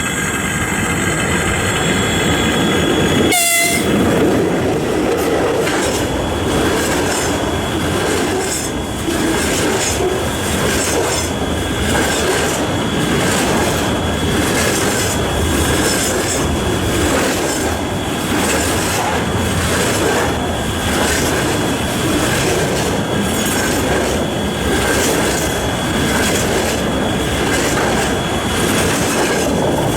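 VL10U electric locomotive's horn sounding a steady chord, cutting off about three seconds in with a sudden burst of noise. Then a container freight train rolls past, its wheels clattering rhythmically over the rail joints with a steady thin squeal.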